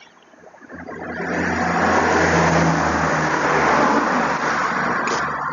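A motor vehicle passing by: engine hum and road noise swell up over a couple of seconds, hold, then slowly fade.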